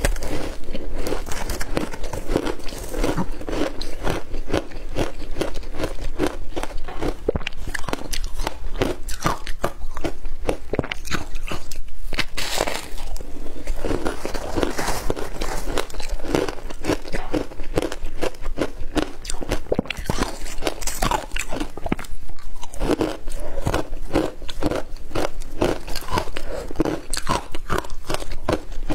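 Frozen shaved-ice slabs flavoured with passion fruit being bitten and chewed: a dense run of crisp crunches and crackles, bite after bite.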